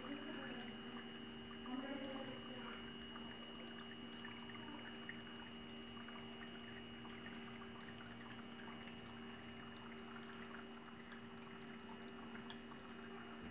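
Water trickling and splashing down the steps of a small tabletop waterfall fountain, running steadily, with a faint steady hum underneath.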